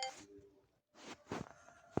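A Sony Ericsson phone ringtone stops right at the start with a short fading tail. Then there is only faint rustling and handling noise, and one sharp click near the end.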